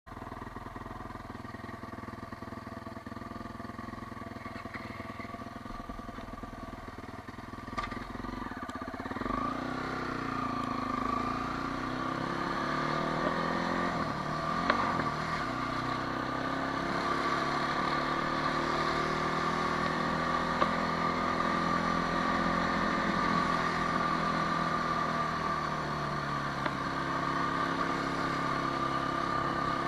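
Quad bike engine heard up close, running steadily at low revs, then pulling away about eight seconds in. Its pitch then rises and falls as it speeds up and slows, with a few brief sharp knocks.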